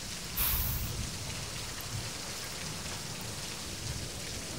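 Steady heavy rain falling outside, with a brief louder hiss about half a second in.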